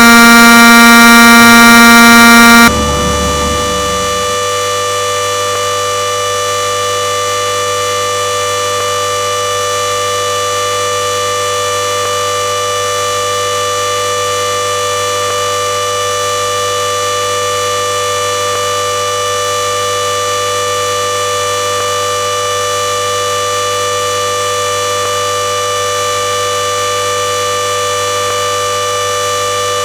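Klexen DS8 washing machine in its spin cycle at 4000 rpm, a steady, unchanging whine over a low hum. A very loud buzzing tone sounds over it at the start and cuts off abruptly after about three seconds.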